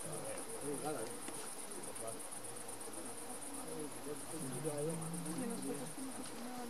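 Insects chirring: a steady, fast, high-pitched pulsing trill, dipping briefly near the middle, over a faint low murmur.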